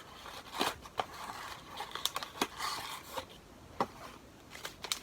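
Paper wrapping rustling and crinkling as a small wrapped item is unwrapped by hand, with scattered sharp clicks and taps.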